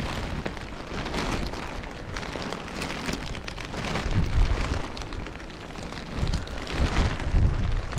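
Steady rain mixed with graupel falling, with wind gusting against the microphone a few times, strongest about halfway and near the end.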